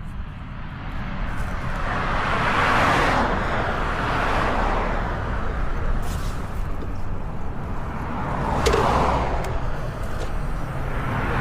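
Road and wind noise from a moving vehicle, most likely the motorcycle on the ride: a steady low rumble with a rushing noise that swells and fades about three times, like traffic going past.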